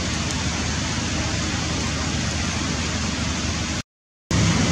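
Steady, fairly loud outdoor noise: an even hiss with a low rumble, with no distinct events in it. It drops out to silence for about half a second near the end, then returns slightly louder.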